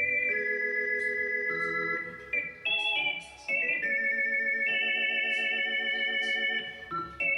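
Yamaha YC-20 combo organ playing held chords with vibrato over a bass line, the chords changing every second or so with a few short breaks. The registration has the 16' footage just short of full and the 8' and 2' fully on.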